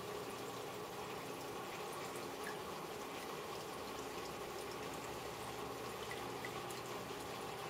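A turtle tank's equipment running: a steady trickle and bubbling of water with faint drips, over a low steady hum.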